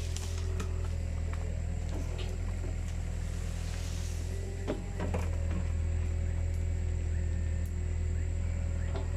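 Caterpillar 305.5E2 mini excavator's diesel engine running steadily under work, a deep even hum, with scattered knocks and clanks from the machine.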